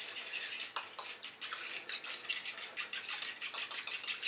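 Metal spoon stirring a thin cornstarch sauce in a small ceramic bowl, clinking quickly and repeatedly against the bowl's sides, with a short scrape in the first second.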